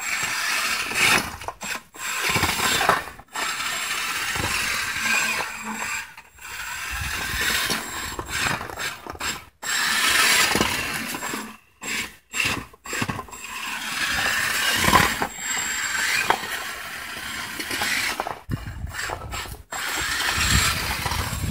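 60 lb combat robot's brushless drive motors and drivetrain running on concrete in short stop-start runs, the noise cutting off abruptly between bursts many times as it drives and turns.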